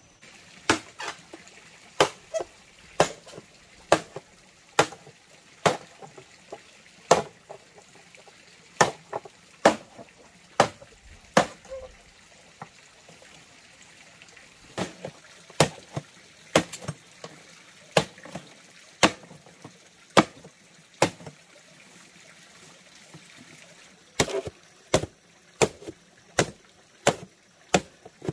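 Machete chopping into a green bamboo pole to cut a notch around it: sharp single strikes about once a second, a pause of a few seconds about three-quarters of the way through, then quicker strikes.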